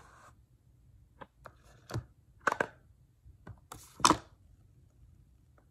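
Apple Pencil box being opened and the second-generation Apple Pencil lifted out: a scatter of short clicks and knocks from the cardboard packaging, the loudest about four seconds in.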